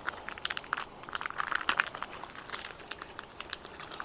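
Packaging crinkling and crackling as a steering-head (neck) bearing race is unwrapped, a run of quick irregular crackles and rustles.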